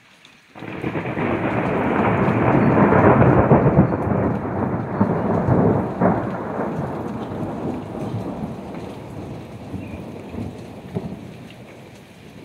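Thunder from a lightning strike: a sudden clap about half a second in that swells into a long rolling rumble, loudest a few seconds in, with a sharp crack near the middle, then dies away slowly.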